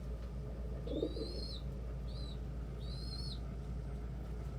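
Young pigeon (squeaker) giving high-pitched begging squeals, three of them: a longer arched squeal about a second in, a short one just after, and another longer one near three seconds. Begging calls aimed at adult birds to be fed.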